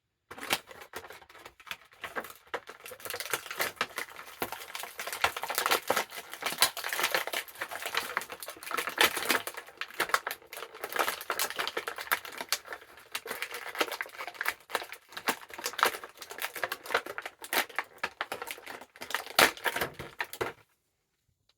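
Stiff plastic packaging crackling and clicking without a break as an action figure is worked out of its box. The sound stops abruptly near the end.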